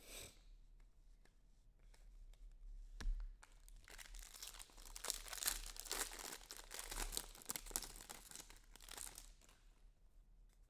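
Foil trading-card pack wrapper being torn open and crumpled by hand: several seconds of crinkling and tearing, starting about four seconds in. A single dull thump comes just before it, about three seconds in.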